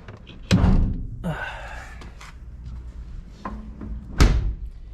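Two heavy thuds of a car door on a 1977 Mercedes 450 SLC being shut, one about half a second in and a louder one about four seconds in, with a brief rustle between them.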